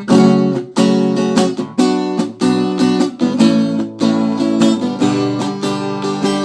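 Acoustic guitar strummed in a steady rhythm of chords, starting suddenly at the very beginning after a moment of quiet.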